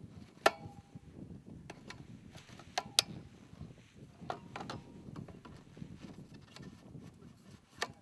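Hang glider leading-edge tubes knocking and clinking against each other as they are handled and sorted. There are several sharp clinks, the loudest about half a second in and again around three seconds, some with a short metallic ring.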